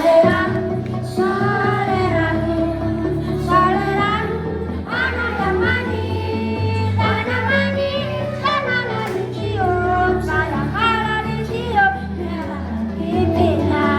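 Children's choir singing a song over an instrumental backing track with sustained bass notes.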